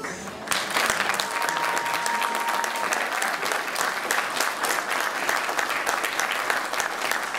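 Wedding guests applauding the couple's kiss: a dense, steady patter of many hands clapping that starts about half a second in.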